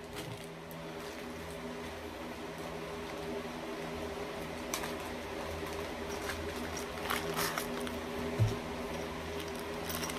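Lift kit parts being handled and unpacked, giving a few light clicks, rustles and a small knock over a steady low hum.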